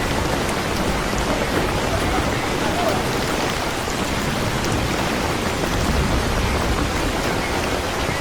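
Steady, heavy rain falling and splashing on surfaces, an even hiss that does not let up.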